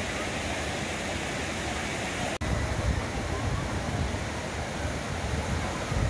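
Waterfall: rushing water as a steady noise. There is a sudden brief break about two and a half seconds in, after which the noise has more low rumble.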